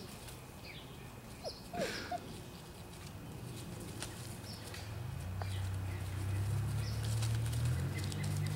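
Wirehaired pointing griffon puppies scuffling in dry leaves as they tussle over a toy bone, with light rustling and a few short squeaks about two seconds in. Small birds chirp in the background, and a low steady hum builds from about halfway through.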